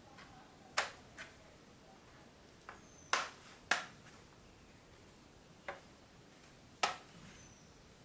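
Plastic clips of the AZOM Exigo v4 N960TD laptop's bottom chassis snapping into place as the cover is pressed home: a string of about seven sharp clicks at uneven intervals, some loud and some faint.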